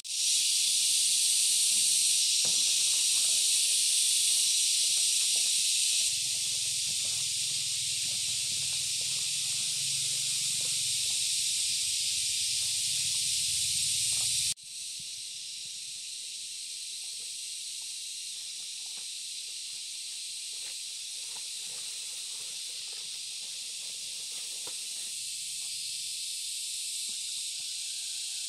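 Dense, steady chorus of insects in the forest, a high shrill hiss; it drops off suddenly about halfway through and carries on a little quieter.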